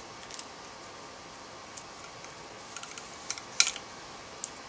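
A few sparse small clicks and taps of metal gearbox parts being handled while fitting a spring into an airsoft Version 3 gearbox shell, the loudest pair about three and a half seconds in.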